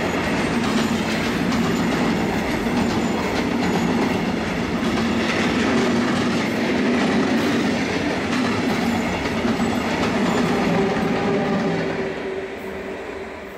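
Freight train of container flat wagons rolling past close by: a loud, steady rumble and rattle of steel wheels on rail, with a rapid run of wheel clicks. Near the end the sound falls away as the last wagon goes by.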